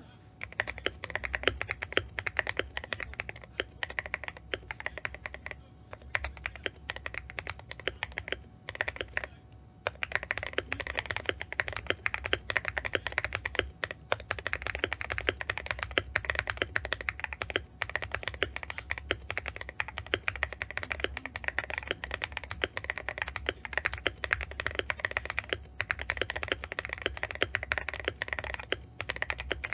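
Typing on an AKKO MOD001 mechanical keyboard with lubed Akko Jelly Pom Strawberry tactile switches, Akko ASA Carbon keycaps, and its stock plate and foam. The keystrokes come in a fast, continuous clatter, broken by a few short pauses.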